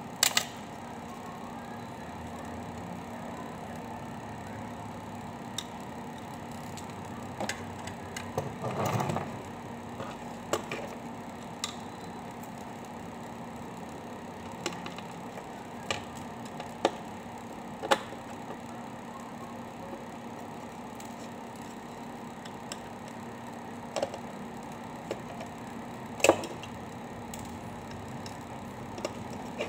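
Scattered light clicks and taps of a screwdriver and small metal parts as a laptop CPU fan and heatsink assembly is handled and taken apart, with a short rustle of handling about a third of the way in. A steady low hum runs underneath.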